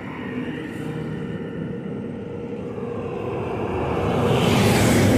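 A motor vehicle approaching and passing close by, its engine and road noise growing steadily louder to a peak near the end.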